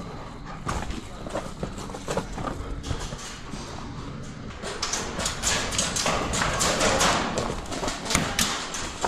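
Footsteps moving quickly over gravel, with irregular crunches that grow louder and denser about halfway through.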